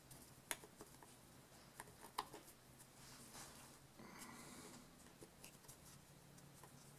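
Near silence with a few faint clicks, the clearest about half a second and two seconds in, and a soft rubbing a little past the middle: hands fitting the rubber brush covers into the end cap of a golf cart starter generator.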